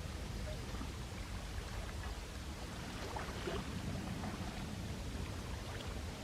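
Small sea waves lapping and washing on the shore, a steady wash with faint fizzing and trickling as the water drains back.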